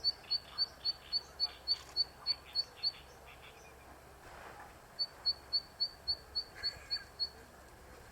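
Zitting cisticola singing: a run of short, sharp, evenly spaced high notes, about three or four a second, which breaks off about three seconds in and starts again as a second run about two seconds later.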